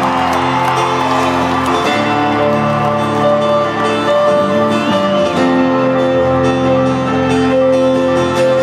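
Live band music in a large arena, heard through a phone's microphone: crowd cheering fades over the first couple of seconds, then long held instrumental notes with guitar carry on.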